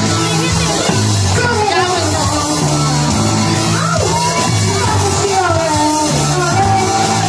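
Loud rock music with a singing voice over a steady, changing bass line, with a drum kit played along.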